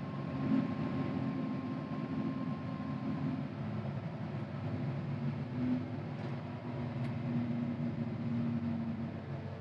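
CAT 950GC wheel loader's diesel engine running steadily under load while it pushes snow with a Metal Pless snow pusher. The engine note shifts slightly a few times.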